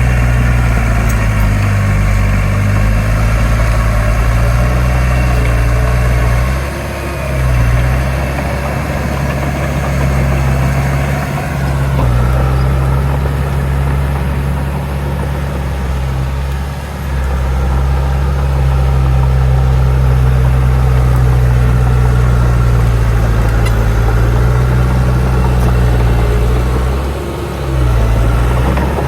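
Heavy diesel engine of a bulldozer running steadily under load, its note dipping briefly three times, about ten seconds apart.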